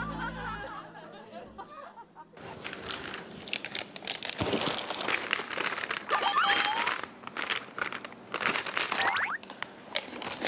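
Clear plastic bag of cereal and milk crinkling and rustling as a spoon scoops cereal out of it, with crunching. The crackling starts about two seconds in and keeps on as dense, irregular clicks.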